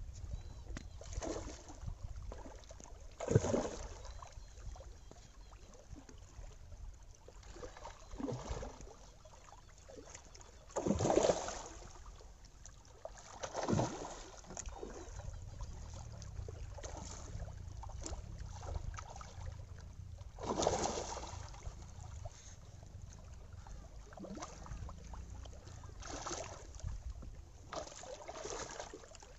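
A hooked rohu thrashing at the surface close to the shore, throwing up several sudden splashes, the loudest a few seconds in, over a steady low rumble.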